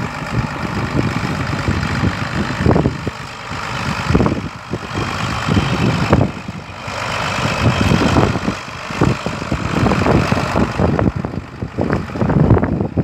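A John Deere 7800 tractor's six-cylinder diesel engine running as the tractor drives and turns, its level rising and falling unevenly.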